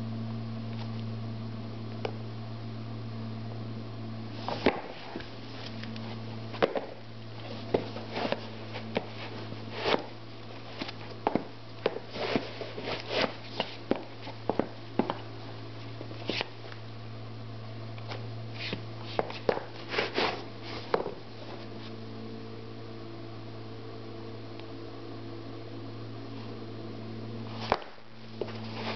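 Scattered soft taps, scuffs and rustles of sneakers being handled and shifted on a tile floor, over a steady low hum. The taps cluster in the middle and come again near the end.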